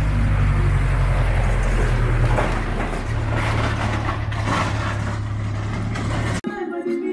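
Engine of a light flatbed truck running as it passes close by on a dirt road and pulls away, with a brief dip about three seconds in. Near the end it is cut off abruptly by guitar music.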